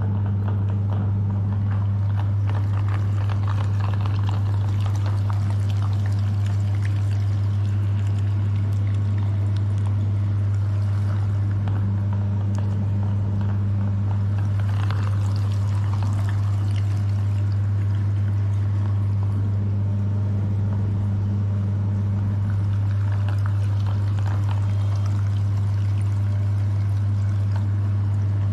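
Electric meat grinder running with a steady low hum while colourful ice cream is forced through it, with soft wet pouring and trickling sounds from the mush being pushed out.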